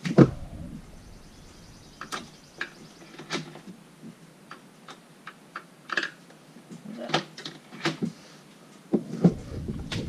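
Scattered clicks and knocks from a small screwdriver working the screws and plastic trim of a 1996 C4 Corvette's interior door panel, with a sharp knock at the start and a low rumble near the end.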